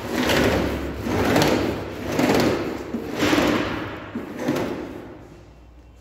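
Footsteps scuffing on a hard floor, about one a second, four in a row, over a low steady rumble; they fade away over the last two seconds.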